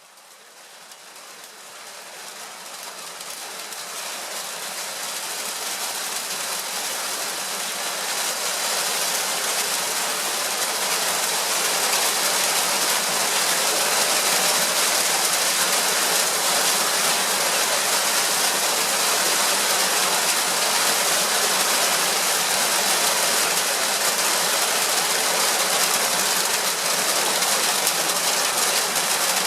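Heavy rain falling in a steady hiss, swelling over the first ten seconds or so and then holding steady.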